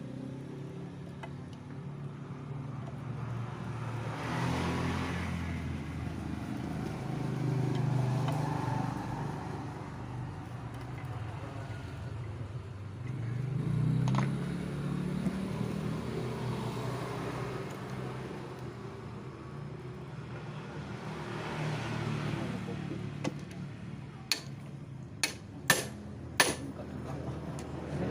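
Motor vehicles passing, the engine noise swelling and fading several times, with a few sharp metallic clicks near the end.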